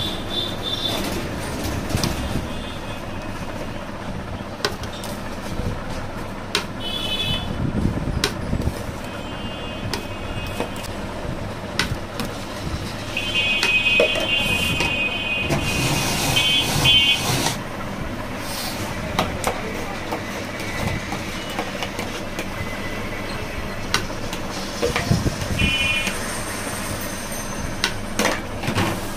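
A metal spoon scoops and scrapes shaved ice in a plastic bowl and drops it into a plastic blender jar, making scattered clicks and scrapes. Under it runs steady street traffic noise, with short high-pitched horn tones sounding several times.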